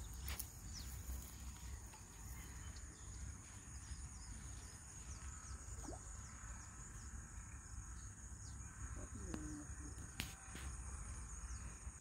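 Steady high-pitched insect drone with scattered short bird chirps.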